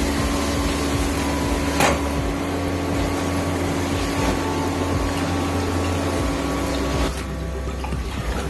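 Soyabean kachori deep-frying in hot mustard oil in an iron kadhai, a steady sizzle under a constant hum. The wire skimmer clinks once against the pan about two seconds in.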